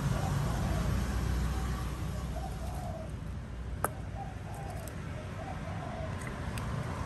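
A dove cooing in short repeated phrases, about one every second or so, over a low steady background hum, with a single sharp click about four seconds in.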